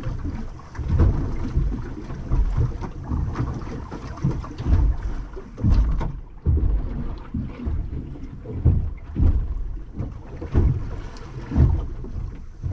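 Wind buffeting the microphone on a small boat, with irregular low bumps, and water knocking and slapping against the hull.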